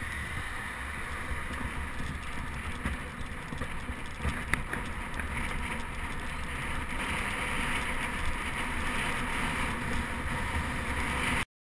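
Steady wind rush and road rumble picked up by a bicycle-mounted action camera while riding, with a single sharp tick about four and a half seconds in. The sound cuts off abruptly near the end.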